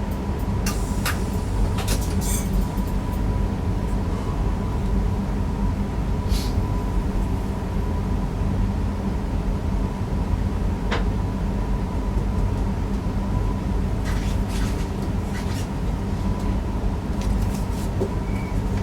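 Newag Impuls EN63 electric multiple unit running along the line, heard inside the driver's cab: a steady low rumble with a constant high hum, and scattered sharp clicks.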